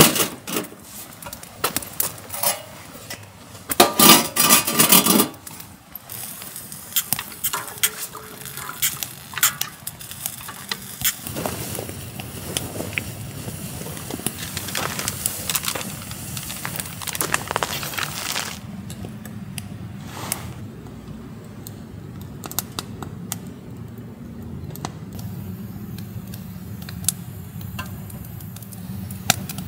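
Camp cookware being handled: a metal kettle set on a wood stove and clinks of pots, a mug and cutlery, with one loud rattling clatter about four seconds in. From about halfway a steady low rush sits under sparse clicks, and near the end hot water is poured from the kettle into a mug.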